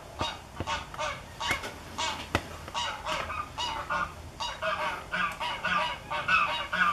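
Geese honking: a run of short honks, several a second, growing louder and busier toward the end, with a few sharp clicks in the first couple of seconds.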